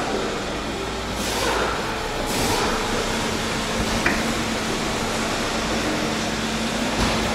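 Steady background hum of a car service workshop, with two short hisses about one and two seconds in and a light click about four seconds in.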